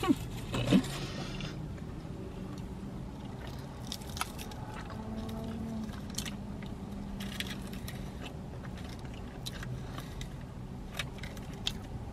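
A person eating waffle fries close to the microphone: chewing and biting, with scattered short crisp clicks.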